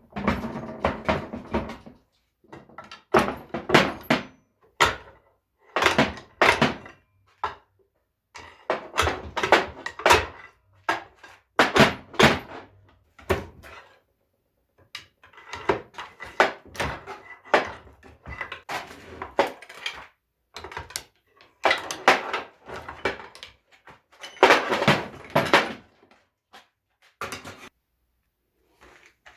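Irregular metal clanks, knocks and scrapes of gearbox parts and hand tools being handled during disassembly, coming in short runs with brief pauses.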